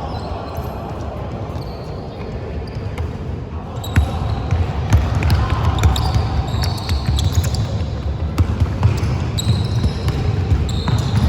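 Basketball game play on a gym court: the ball bouncing, with short high sneaker squeaks and a murmur of voices behind. The play gets busier and louder about four seconds in.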